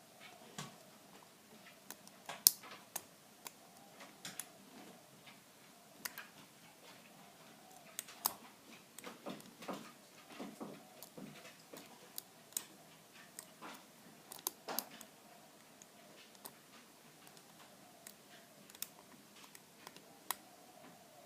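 Lock pick and tension wrench working the pins of an all-brass American Lock padlock during single-pin picking: small, irregular metallic clicks and ticks, a few sharper ones among them, as pins and spool pins are pushed and set.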